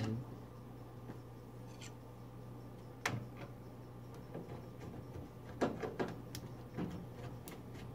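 A few sharp clicks and knocks as the gas range's control panel is handled and pushed back into place: one about three seconds in and a cluster around six seconds, over a steady low hum.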